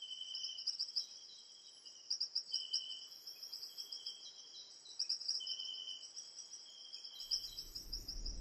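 Faint insects chirring: a steady high trill, with a second, lower call coming and going in short spells of about half a second.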